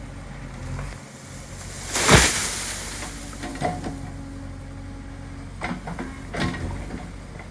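JCB 3DX backhoe loader's diesel engine running steadily at low revs. A loud rushing noise swells and fades about two seconds in, and several sharp knocks and clanks follow later.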